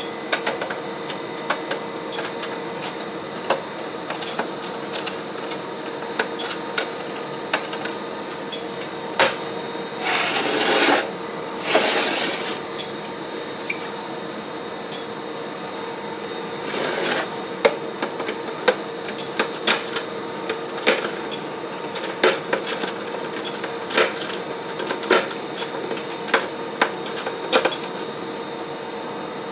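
Screws being driven back into a UPS battery pack's metal casing: scattered sharp clicks and taps of the screws and screwdriver, with three short stretches of whirring or scraping about ten, twelve and seventeen seconds in, over a faint steady hum.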